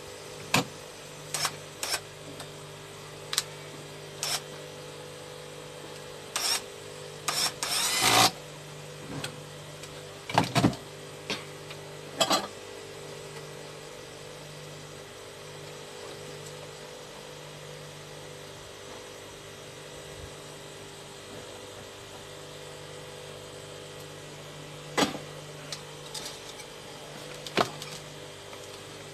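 Scattered clicks, taps and clatter of test probes and tools handled on a workbench, busiest about eight seconds in and again near the end, over a steady low electrical hum that drops out now and then.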